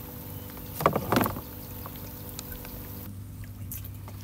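A small boat's motor running with a steady low hum, with a short louder burst of sound about a second in as the wire-framed crab trap is handled.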